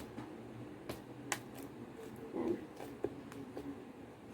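Hands squishing and poking a fluffy slime, giving a few soft clicks and sticky pops.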